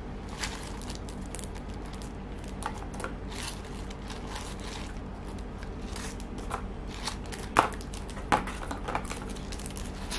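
Scattered small clicks and rustles of makeup items being handled, with two sharper knocks about three-quarters of the way through, over a steady low hum.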